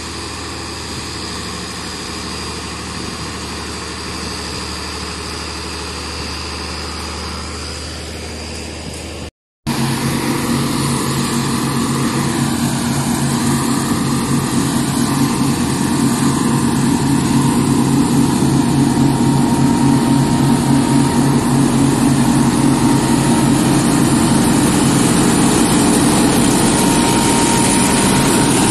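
Diesel engine of a farm machine running steadily. About nine seconds in, a brief break, after which the engine is louder, with a stronger hum that builds slightly toward the end.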